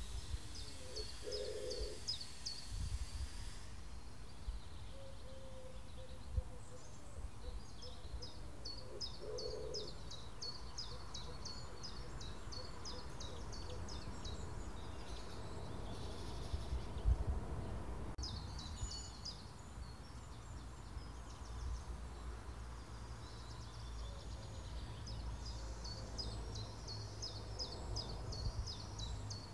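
Garden birdsong: bird song in several bursts of quick, high chirping phrases, with a low steady rumble underneath.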